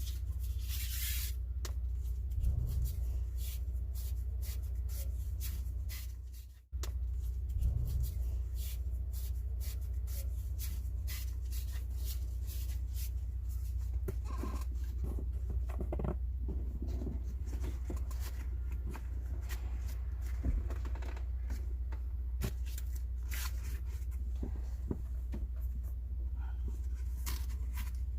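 Scattered light clicks, taps and rustling, typical of hands handling parts and tools, over a steady low hum. The sound cuts out briefly about six and a half seconds in.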